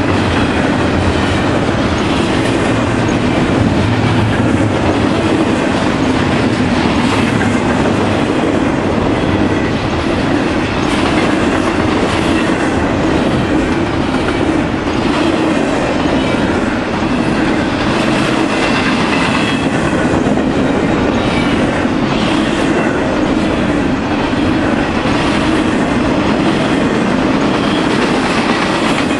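Double-stack container train's well cars rolling past at speed: a steady, loud noise of steel wheels on rail with faint repeated clicks of the wheels.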